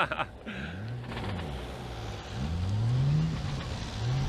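Toyota Altezza drift car's engine revving up and down, its pitch rising and falling several times as the throttle is worked to hold the car sliding on a slippery skidpad.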